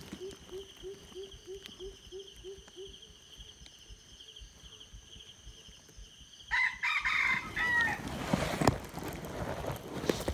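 A red junglefowl cock crows once, a short call about two-thirds of the way in. Broad rustling follows it.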